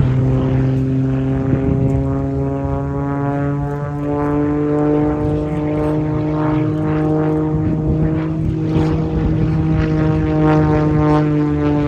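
Propeller engine of an aerobatic biplane running steadily, a loud continuous drone whose pitch rises slightly and then eases down over the span.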